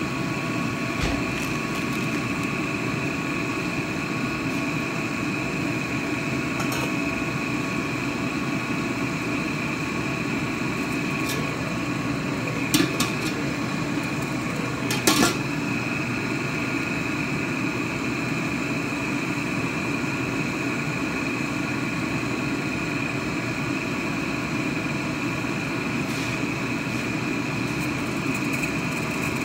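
A steady hum and hiss with some faint tones throughout. About halfway through, a stainless-steel wok lid clinks as it is lifted off, and clinks again a couple of seconds later.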